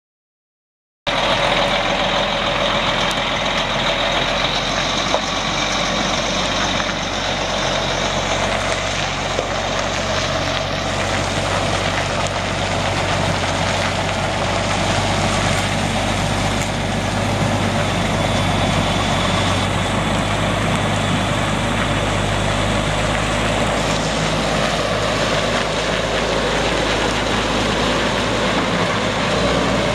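Caterpillar C13 inline-six turbo diesel of a Kenworth T800 semi tractor running steadily as the truck drives slowly, starting about a second in.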